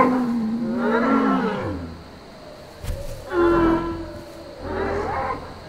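Sound-designed calls of a feathered Deinocheirus: three pitched, moo-like cries. The first is long, lasts almost two seconds and sinks in pitch at its end; two shorter calls follow in the second half. They are a display meant to impress a rival, not an attack.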